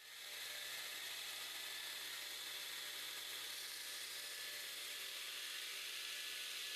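Bench grinder running steadily, a low hum under an even hiss, fading in at the start.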